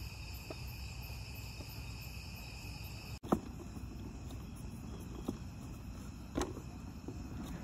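Steady high chirring of night insects, with a few short sharp knocks; the loudest comes about three seconds in.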